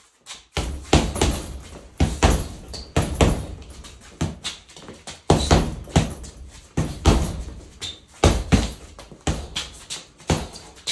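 Boxing gloves striking a hanging Everlast heavy bag in quick combinations: a run of sharp thuds, about two to three a second, each with a short room echo.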